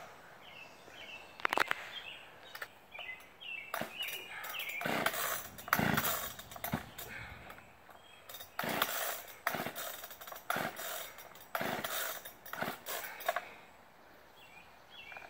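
Gas chainsaw being pull-started again and again without catching: a string of short rasping pulls on the starter cord, about one a second with brief pauses, and the engine never settles into running.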